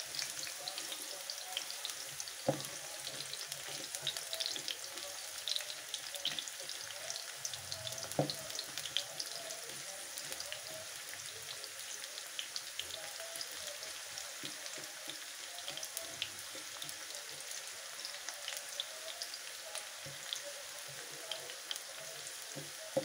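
Sliced bitter gourd (karela) sizzling and crackling as it fries in hot oil in a pan, stirred with a silicone spatula. Two short knocks come about two and a half and eight seconds in.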